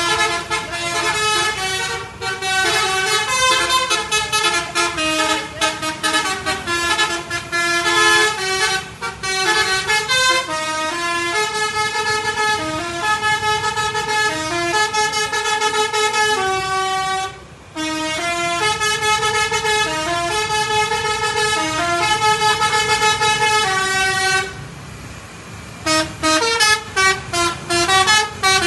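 Bus basuri (telolet) musical horn playing a melody of stepped notes, quick staccato runs at the start and end and longer held notes in between. It breaks off briefly about 17 seconds in and pauses again for a second or two near the end.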